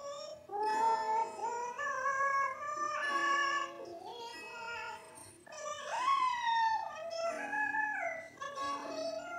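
A high woman's voice singing a slow melody in long held notes, wavering in vibrato and gliding from one pitch to the next.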